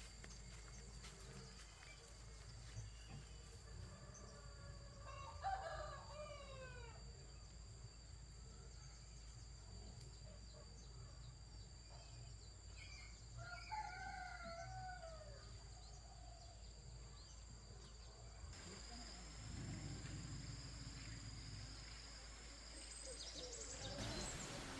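A rooster crowing twice, faintly, several seconds apart, over a steady high-pitched drone.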